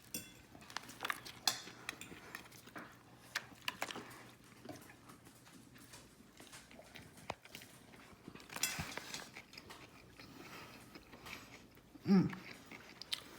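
A person biting into and chewing a Big Mac, heard as soft, irregular wet clicks and smacks of eating, with a brief vocal hum about twelve seconds in.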